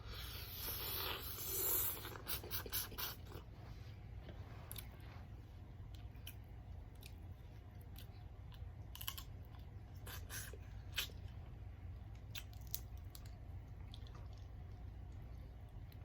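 Close-up eating sounds of a seafood boil: chewing with crunches and wet clicks. A louder rustling crunch comes in the first two seconds or so, then scattered clicks.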